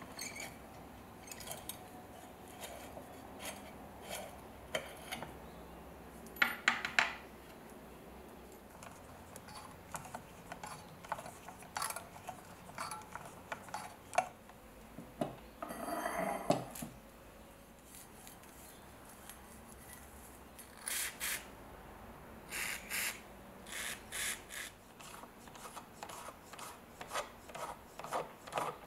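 Hand screwdrivers turning out small rusty screws from an old ship's compass's metal bowl and clamp ring, with scattered clicks, scrapes and light metal clinks as the tools and parts are handled. There are louder clusters of scraping about a quarter and halfway through, and a run of short scraping strokes later on.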